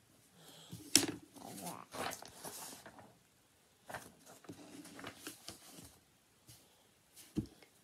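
A sheet of drawing paper being handled and rustled in two spells, with a sharp click about a second in and a dull thump near the end.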